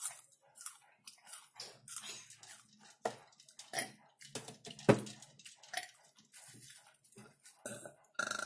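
Close-up crunching of caramel popcorn being chewed, in irregular crackles, with a burp about five seconds in. Near the end, fingers rummage through the popcorn in a glass bowl.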